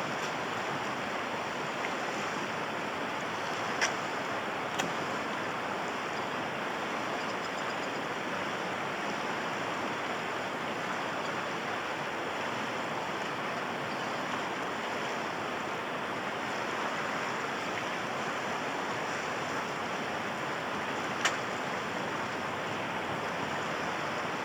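Steady rushing of a large river flowing past, with a few faint sharp clicks, one a few seconds in and another near the end.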